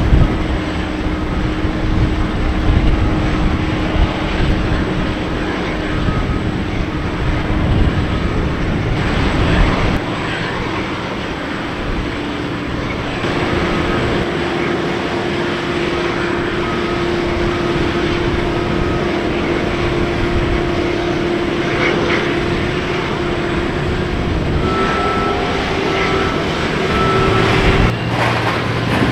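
Steady drone of aircraft and ground equipment running on a cargo apron, with a held hum and short runs of faint repeating beeps at times.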